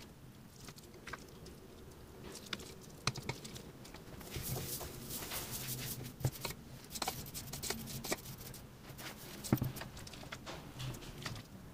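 Rice malt grains poured from a bowl into a stainless steel pot, a dry pattering rustle for several seconds in the middle. Scattered light clicks of a spoon against the bowl and pot come before and after.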